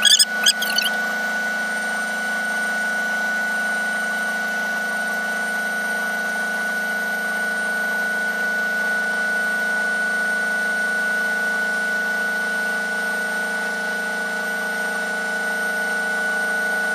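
Steady machinery hum with a constant high whine over several lower tones, unchanging in level throughout.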